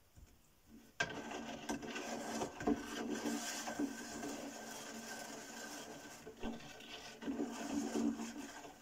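A white rod stirring potassium chloride brine in a large glass jar, making a continuous scraping and swishing with scattered clicks against the glass. It starts abruptly about a second in and eases off near the end.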